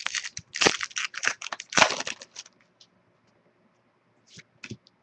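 Foil wrapper of a trading card pack being torn open and crinkled, with a run of crackling over the first couple of seconds, followed by a few light clicks of the cards being handled.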